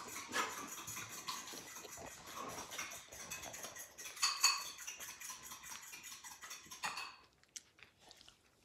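Metal spoon and ceramic dishes clinking and scraping, with a louder clink a little past four seconds in. The clatter stops about seven seconds in.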